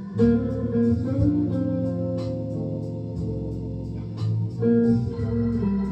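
Solid-body electric guitar playing a slow lead line of sustained, picked notes over steady held chords.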